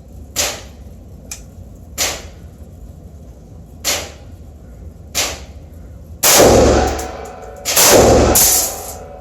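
Two rifle shots about a second and a half apart from a Bushmaster Carbon 15 AR-15 fitted with a Hardened Arms muzzle brake, each a loud blast with a long echo trailing off. They come in the second half. Earlier, four fainter sharp cracks sound a second or two apart.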